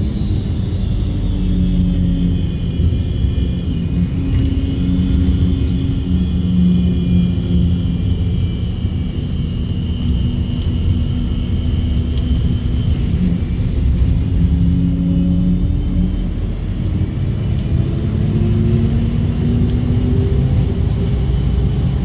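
Diesel bus engine and drivetrain heard from inside the passenger saloon, running steadily. The engine note slowly dips in pitch and rises again, and a high-pitched whine is heard for about the first half.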